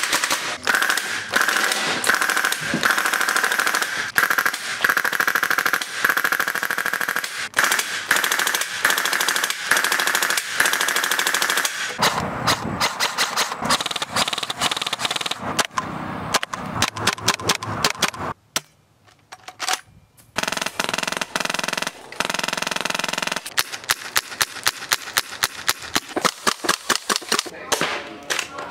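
Airsoft replica guns firing long, rapid strings of shots, first a WE Tech M4, then a Classic Army HK33 after a change about twelve seconds in. The firing stops for about two seconds past the middle, then resumes in quick regular shots.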